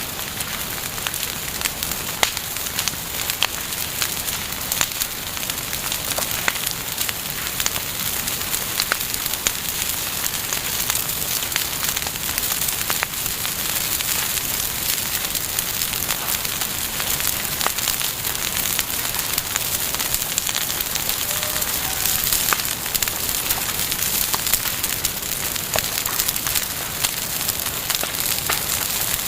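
Wood bonfire burning: a steady hiss with many scattered sharp crackles and pops.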